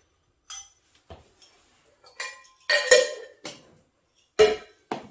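Small miniature cooking-set pots and utensils knocking and clinking together as they are handled, about seven separate knocks, some ringing briefly, the loudest about three seconds in.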